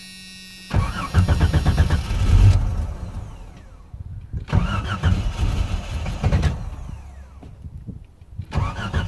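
Starter cranking the Jeep Cherokee XJ's Renix 4.6-litre inline-six in three bursts without it catching, after a steady hum in the first moment. The owner takes it to need a little gas to start.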